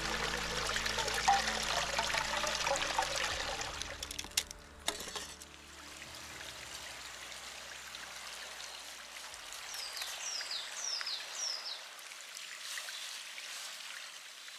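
A small forest stream trickling and running steadily, with background music fading out over the first few seconds. About ten seconds in, a small bird gives a short run of high, downward-sliding chirps.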